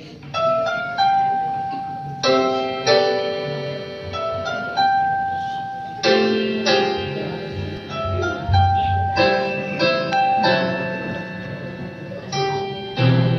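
Piano playing a slow hymn introduction: chords and melody notes struck about once a second, each left to ring and fade.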